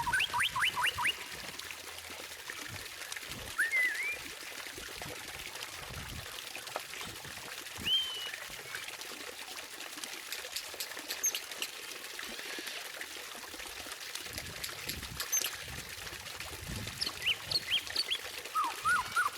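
White-rumped shama song over a steady trickle of running water: a fast run of rising notes at the start, single chirps about 4 and 8 seconds in, scattered high ticks, and another rapid run of rising notes near the end.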